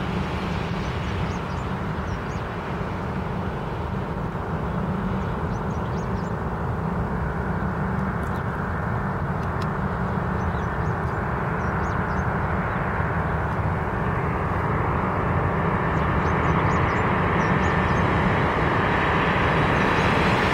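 Boeing 747-400's four jet engines on final approach, a steady jet noise that grows slowly louder as the aircraft nears. A faint high whine comes in near the end.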